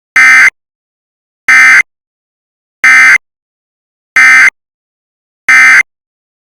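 Emergency Alert System SAME data bursts: five short, harsh electronic buzzes, evenly spaced about 1.3 seconds apart, with silence between them. Their short length after the spoken message fits the end-of-message code that closes an EAS alert.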